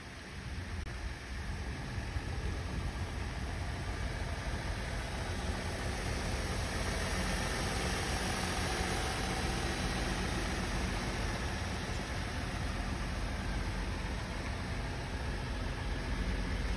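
2013 Ford F-150 pickup's engine idling steadily with the hood up, growing a little louder over the first few seconds.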